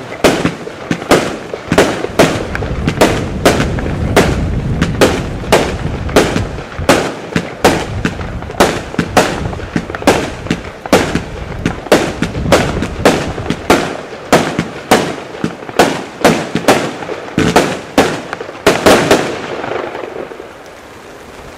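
Broekhoff "Fireworks University" compound firework cake firing shot after shot: a fast, even run of sharp bangs, about two a second, that stops about two seconds before the end.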